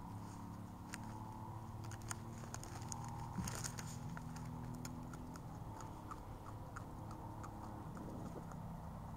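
Sharp clicks and crackles over a steady low rumble, thickest about three and a half seconds in, then a run of small evenly spaced ticks, about three a second, that stops near the end.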